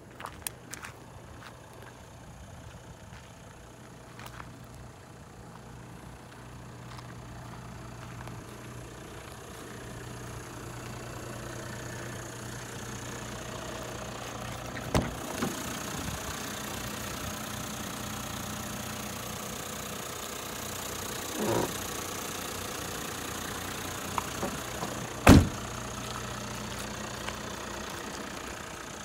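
Toyota Coaster's 1HD-FTE 4.2-litre straight-six turbodiesel idling steadily, getting louder over the first dozen seconds. A few sharp knocks break in, the loudest about three-quarters of the way through.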